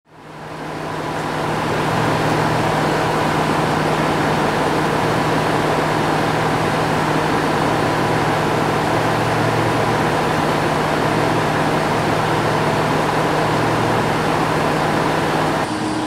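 A steady mechanical drone: a low hum under a wide hiss. It fades in over the first two seconds and changes abruptly near the end.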